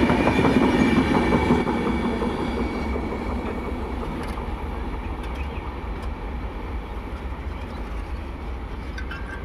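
Gitanjali Express passenger train rolling past on the rails with wheel clatter, growing steadily fainter as it moves away.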